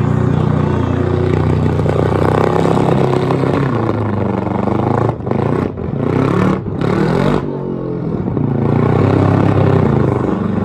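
Supercharged LS V8 in a Mini held at high revs during a burnout, the tyres spinning in smoke. The engine note drops sharply twice around the middle, then climbs back to a steady high rev.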